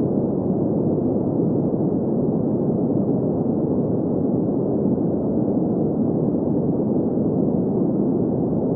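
Steady green noise for sleep: an unbroken, deep, muffled hiss with no high end, holding the same level throughout.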